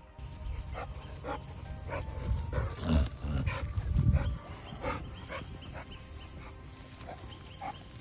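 Dogs barking repeatedly, short irregular barks, over a low rumbling noise on the microphone that is loudest about three to four seconds in. Background music plays faintly beneath.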